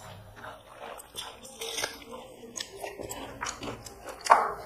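Close-up eating sounds: chewing, mouth smacks and small crunches as chicken biryani is eaten by hand, a run of short clicks with one louder smack near the end.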